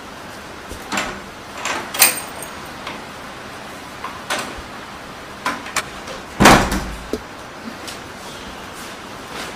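A wooden door banging shut with a heavy slam about six and a half seconds in, the loudest sound here. Several lighter knocks and thumps come before it.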